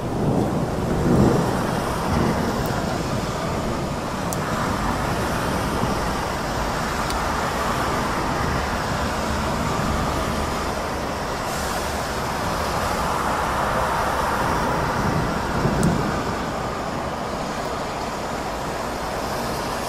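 Stormy city ambience: steady rain with road traffic passing on wet streets, swelling and fading as vehicles go by. A louder low rumble swells about a second in and again about four seconds before the end.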